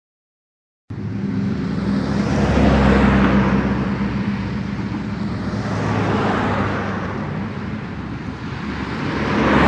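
Road traffic: motor vehicles passing, starting abruptly about a second in, the noise swelling and fading roughly every three seconds over a steady low engine hum.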